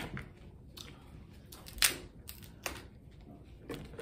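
King crab leg shell being cracked and snapped apart by hand: a series of sharp cracks, the loudest about two seconds in.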